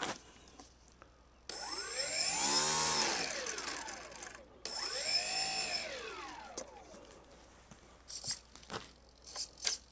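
The electric motor and propeller of a Wing Dragon RC model plane running up twice on the throttle, each run starting suddenly as a whine that rises in pitch and then falls away over about three seconds, with a thin high whine above it while powered. A few light clicks near the end.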